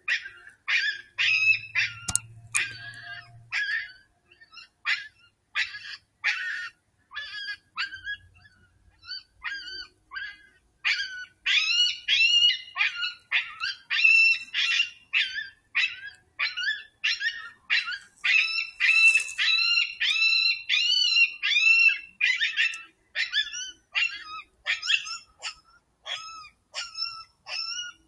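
Predator call sounding a long run of short, high, dog-like yips and whimpers, about two a second, louder through the middle of the run.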